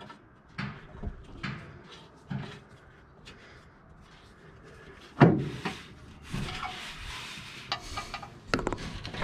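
Knocks and clunks of a steel exhaust header being worked into place against the truck's frame and floor, with one loud bang about five seconds in and a stretch of scraping and rustling after it.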